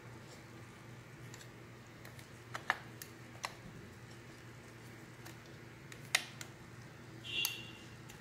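Sharp little clicks and taps as a Bosch distributor is handled, its plastic cap and metal spring clips knocking against the body, a few in a cluster a few seconds in and two more past the middle, with a brief squeak near the end. A low steady hum underlies it.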